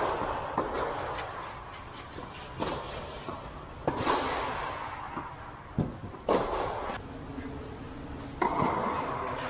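Tennis rackets striking the ball in a rally, sharp hits a second or two apart. Each hit echoes in the big inflatable air-dome hall.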